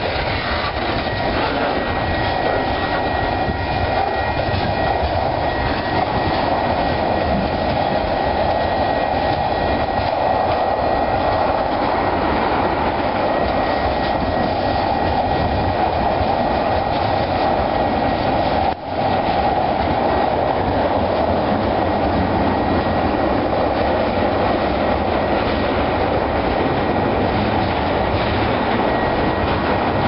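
Freight cars of a mixed train (covered hoppers, tank cars, boxcars) rolling past at close range: a steady rumble and rattle of steel wheels on the rails. The sound cuts out for an instant about two-thirds of the way through.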